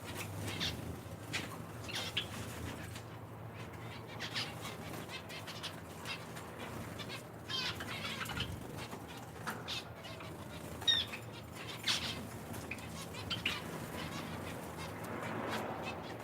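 Small captive finches, zebra finches among them, chirping in short scattered calls, with brief wing flutters and clicks between them. A low steady hum runs underneath.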